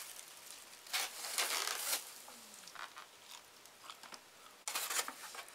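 Plastic food bags crinkling and styrofoam take-out containers being handled while shrimp are peeled by hand. It comes in a few short bursts of rustling, with the loudest near the end.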